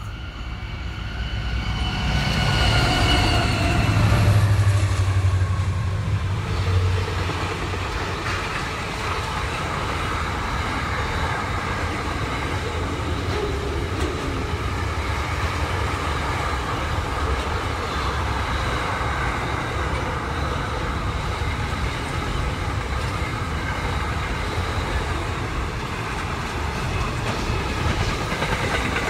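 A freight train passing, headed by four NR and AN class diesel-electric locomotives: their engines are loudest a few seconds in, with a strong low hum. Then comes a long string of container wagons rolling by with a steady rumble of wheels on rails.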